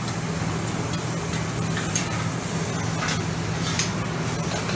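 Onions, rice noodles and shrimp sizzling on a flat-top Mongolian barbecue griddle while being stir-fried with metal spatulas, with a few sharp spatula clicks and scrapes on the steel. A steady low hum runs underneath.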